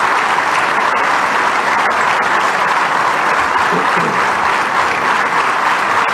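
A large audience applauding steadily, a dense, unbroken clapping.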